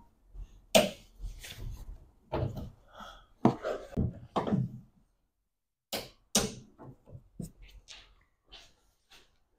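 Irregular sharp clicks, taps and knocks of hands working plastic clips and fittings on a car's bonnet. There is a brief silent gap about five seconds in, then a few more separate clicks.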